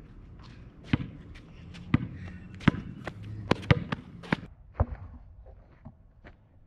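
Basketball dribbled on street asphalt: about seven sharp bounces at irregular spacing, most under a second apart, fading to a few faint ones after about five seconds.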